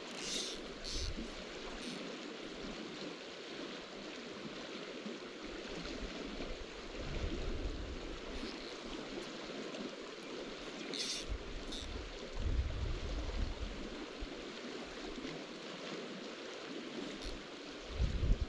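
Steady rush of a fast-running creek. Brief low rumbles come about seven and twelve seconds in, and a few faint ticks are heard near the start and about eleven seconds in.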